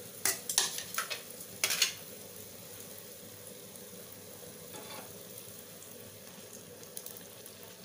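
Oil sizzling steadily as a rice-and-jaggery fritter (pongadalu) deep-fries in a kadai, with a spoon scraping and knocking against the pan several times in the first two seconds and once or twice faintly later.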